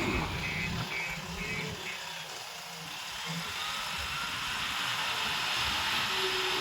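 Reversing alarm beeping about twice a second, stopping about two seconds in, over the steady running of a heavy machine's engine.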